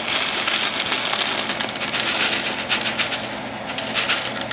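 Dry Kraft Dinner elbow macaroni pouring out of its cardboard box onto a hard surface: a dense, continuous pattering rattle of many small pieces.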